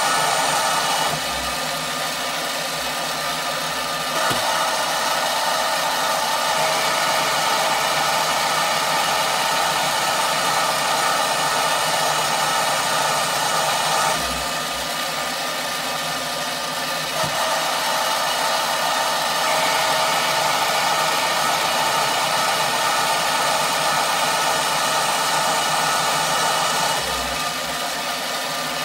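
Mini metal lathe running while a turning tool cuts an ebonite rod down in diameter: a steady machine hum with cutting noise over it. The sound steps louder about four seconds in, drops back about halfway through, rises again a few seconds later and eases off near the end.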